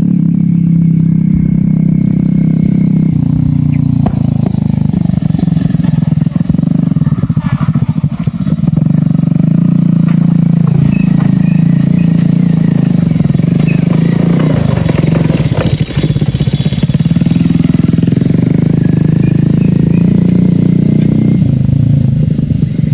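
Small engine running steadily with a low, even hum.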